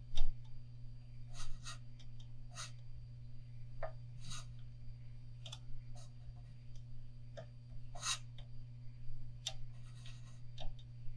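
Thread and fingers rubbing on a fishing rod as a thread wrap is wound on by hand: about a dozen short, scratchy rubs and clicks at uneven intervals, the loudest right at the start, over a steady low hum.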